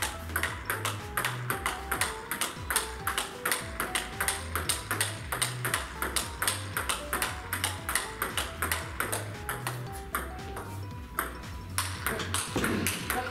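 Table tennis rally: the ball clicking off rackets and table in quick, even alternation, about four to five hits a second, with a short break near the end.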